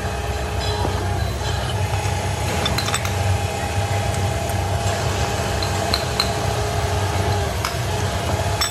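Light metallic clinks and taps as a steel spacer tube and bearings are handled and fitted into an aluminium motorcycle wheel hub, over a steady low hum of workshop machinery.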